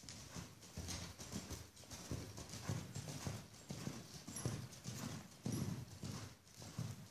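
Hoofbeats of a ridden Paint cross gelding on the soft dirt footing of an indoor arena: a steady run of dull thuds, about two strong beats a second.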